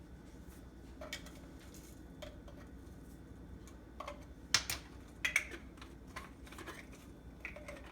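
Scattered light clicks and taps of small kitchen items being handled, a few a second at most, the sharpest about four and a half seconds in, over a faint steady hum.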